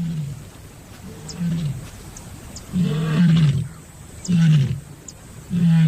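Lioness calling in heat: a series of short, low, moaning calls, each dropping slightly in pitch, repeating every second or so.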